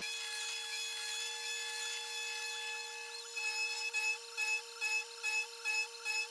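Taig CNC mini mill's spindle driving a carbide end mill through metal under flood coolant, a steady high-pitched whine. About halfway through it starts pulsing evenly, two to three times a second.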